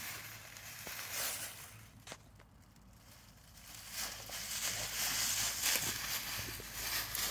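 Dry fallen leaves and dead grass rustling and crunching as a dog roots through the leaf litter with its nose. It goes quieter about two seconds in, and the rustling gets busier and louder from about four seconds on.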